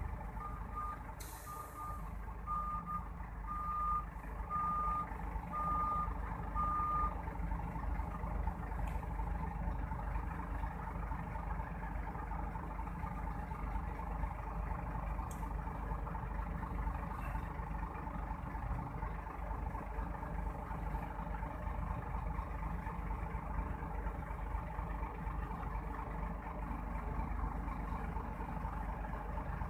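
Scania 410 dump truck's reversing alarm beeping as it backs up, stopping about seven seconds in. Under it, the steady low rumble of the heavy diesel engines of the truck and a Hitachi excavator.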